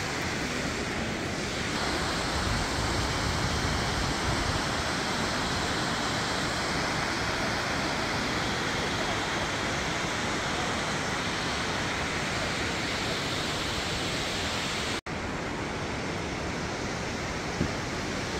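Waterfall: a steady, even rush of falling water, broken off for an instant about fifteen seconds in.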